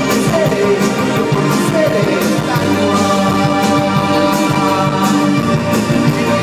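Live band playing amplified through a PA: electric guitar and drum kit with regular cymbal hits, and a singer's voice.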